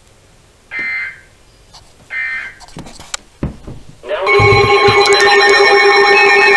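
Two short, buzzy bursts of Emergency Alert System end-of-message data tones, about a second and a half apart, marking the close of the warning. After a click and a low thump, a loud, sustained set of steady tones begins about four seconds in.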